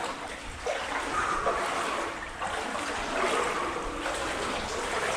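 Water splashing and trickling as someone wades through shallow water in a tunnel.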